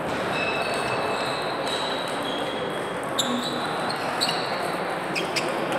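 Table tennis ball clicking off bats and table a few times in a rally, from about three seconds in, over the steady murmur and knocking of play at other tables in a large sports hall.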